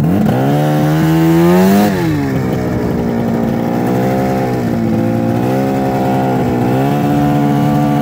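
Arctic Cat ZR snowmobile's two-stroke engine revving up, its pitch climbing steeply for about two seconds. It then drops back and runs at a steadier speed, with two smaller rises in pitch later on.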